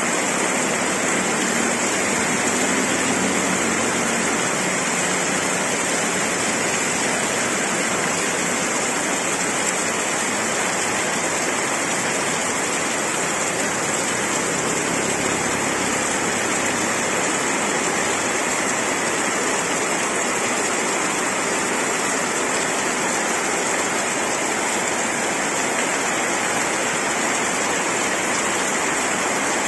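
Very heavy rain falling steadily on a road and roofs, with water pouring off the edge of an awning close by; a dense, unbroken hiss at an even level.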